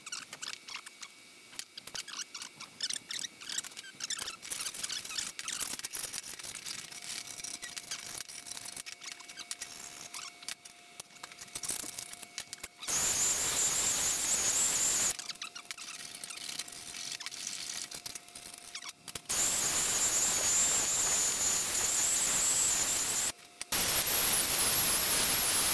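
Aluminium sheet edges being deburred by hand with quick, repeated scraping strokes of a file or deburring tool. About halfway through, a cordless drill spins an abrasive deburring wheel against the aluminium edge in three runs, a steady high whine over a rushing grind that is the loudest part.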